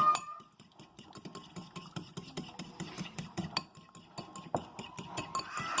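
A utensil stirring and mixing in a bowl, with many quick clicks and taps against the dish.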